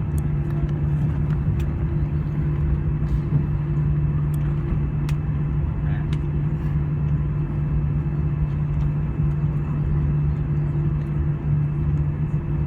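Steady cabin drone inside an Airbus A320 on the ground before takeoff: a low hum with a steady tone over rumble, with a few faint clicks.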